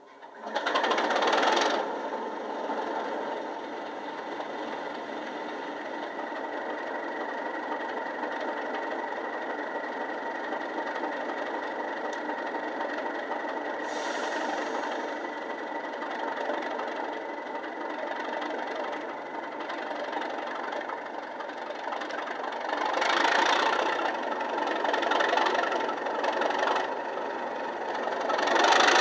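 A Digitrains Class 37 diesel sound file (English Electric 12CSVT engine) plays from a Bachmann model locomotive's ESU LokSound 5 decoder through its small EM1 speaker. It opens with a loud burst as the engine starts, then settles into a steady idle, with a short hiss about halfway. In the last few seconds the engine note swells in several surges as the locomotive begins to pull away.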